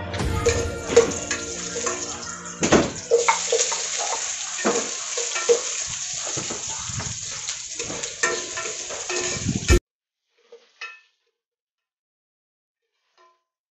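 Metal ladle stirring a pot of soup on a wood fire, with scattered clinks and knocks against the pot over a steady hiss. About ten seconds in, the sound cuts off abruptly to near silence.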